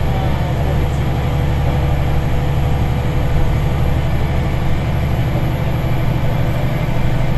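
Karosa B961E articulated city bus heard from inside the passenger cabin while driving: its diesel engine and the running gear make a steady, heavy low drone.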